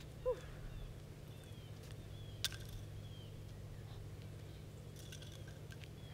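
Quiet outdoor ambience with a steady low hum and faint, short falling bird chirps, broken by a single sharp click about two and a half seconds in and a few softer clicks near the end.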